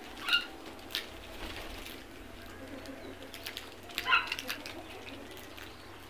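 Short calls from a feeding flock of house crows and common mynas, once just after the start and again about four seconds in, with a sharp tap about a second in.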